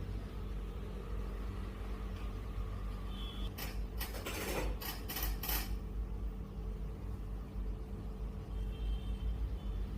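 A quick run of five or six sharp slaps and clicks from a head and neck massage, about three and a half to six seconds in, over a steady low rumble of traffic.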